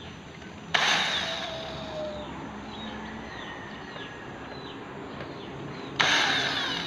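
Cordless drill boring a hole into the speargun's wooden stock, starting abruptly about a second in and running while the cutting noise fades, then a second burst of drilling near the end.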